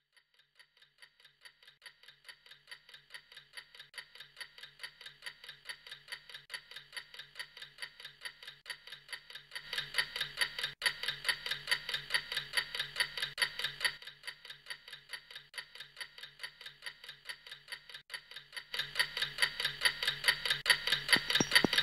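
Clock ticking fast and evenly, several ticks a second, over a faint low hum. It fades in and gets louder in steps about halfway through and again near the end.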